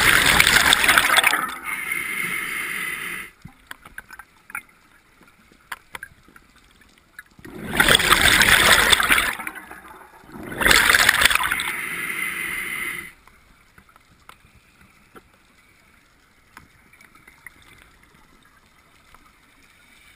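Scuba diver breathing through a regulator underwater: loud gurgling bursts of exhaled bubbles, each trailing off into a quieter hiss. There are three breaths, one at the start and two more around eight and eleven seconds in, with quiet stretches and faint clicks between them.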